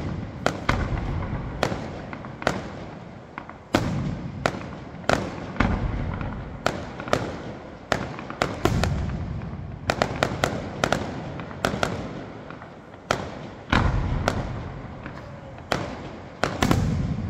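Aerial firework shells bursting in quick succession, a sharp bang every half second or so, with a rumble trailing after each. A few heavier booms stand out, about four seconds in, near fourteen seconds and near the end.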